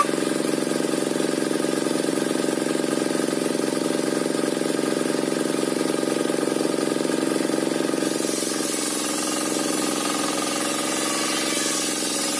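Belt-driven circular sawmill (serkel) running steadily while sawing a waru log, its drive engine giving a constant note. A high hiss from the cut grows louder about two-thirds of the way in.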